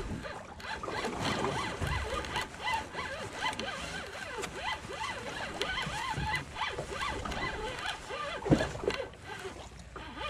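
Spinning reel being cranked steadily, its gears and bail giving a fast, continuous rattling whir as line is wound in against a fish hooked about 200 feet down.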